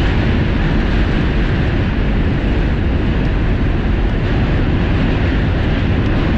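New York subway train running across the Manhattan Bridge: a loud, steady rumble of wheels on rails.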